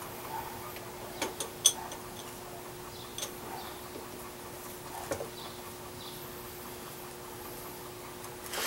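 Scattered sharp metallic clicks and taps from handling a drill bit at a drill press chuck while changing bits, the loudest about one and a half seconds in, over a faint steady hum.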